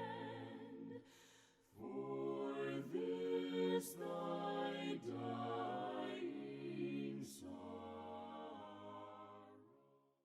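Unaccompanied voices singing a slow hymn in harmony, with sustained notes and a brief break about a second in. The singing fades out near the end.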